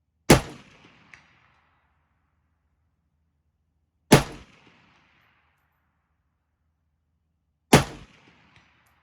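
Three single rifle shots from a MAK-90, a Chinese AK-47 variant in 7.62×39 mm, spaced about four seconds apart. Each shot is followed a little under a second later by a faint ding from the bullet striking a steel plate 200 yards downrange.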